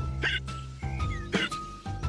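Cartoon background music: a light tune over a steady bass line, with two short sharp hits about a quarter second and a second and a half in.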